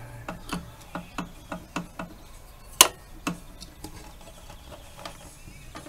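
Light metal clicks and taps as the metal needle plate of an Elna Lotus SP sewing machine is handled and fitted over the bobbin hook and feed dog. A quick run of small clicks in the first two seconds, then one sharper click about three seconds in and a few scattered taps after.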